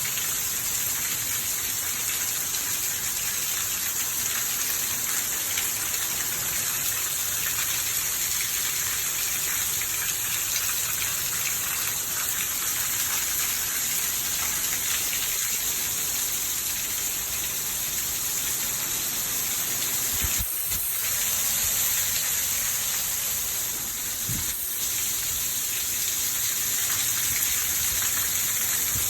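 Heavy rain pouring down, a steady, unbroken hiss of rain on surfaces, with two brief low bumps about two-thirds of the way through.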